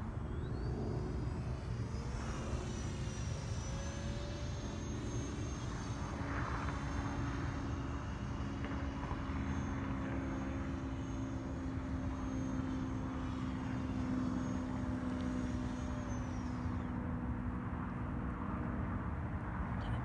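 FMS 50 mm electric ducted fan on a model jet whining high in the sky: a high, steady tone that rises just after the start, holds with slight wavering, then drops away and stops about three-quarters of the way through.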